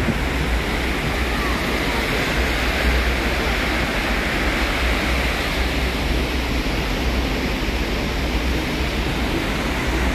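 Steady rushing noise of wind and sea on a moving ship's deck, with wind buffeting the microphone as a constant low rumble.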